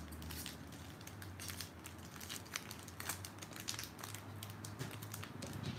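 Foil booster-pack wrapper crinkling and crackling in the hands as fingers work at its top edge to tear it open.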